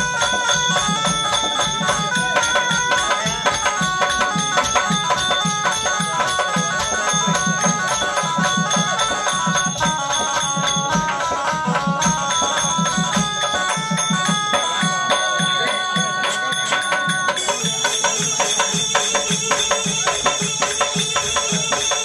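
Live folk-theatre music: a harmonium playing a stepped melody over a steady hand-drum beat, with jingling metal percussion. The melody breaks off briefly about halfway through, and the jingling gets brighter in the last few seconds.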